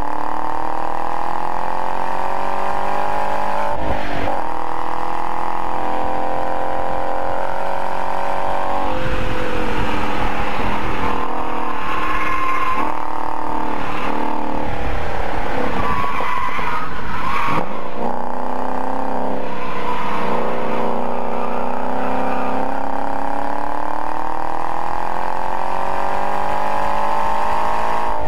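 Ford Mustang engine heard from inside the cabin, accelerating hard on a track lap and rising in pitch through the revs, with a gear change about four seconds in. Through the middle the engine note varies through a corner, with brief tyre squeal, then climbs steadily again near the end.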